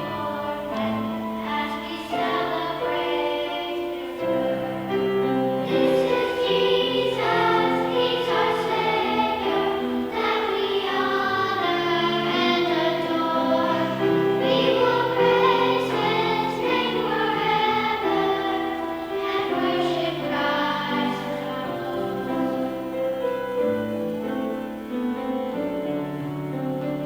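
A choir singing with instrumental accompaniment: held notes changing about once a second in several voices at once.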